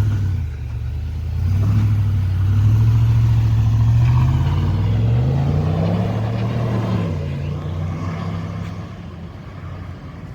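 Stock-exhaust 7.3 L gas V8 of a Ford F-250 pickup accelerating away: the engine note holds steady, then rises for a couple of seconds, drops sharply at a gear change about seven seconds in, and fades as the truck pulls into the distance.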